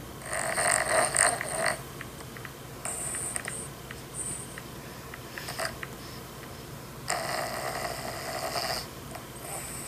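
Snoring: two long, loud rasping snores about seven seconds apart, with fainter, shorter breaths between them.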